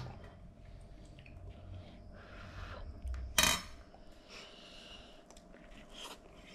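Quiet sounds of hands mixing rice on plates, with one short, sharp clink of tableware about three and a half seconds in.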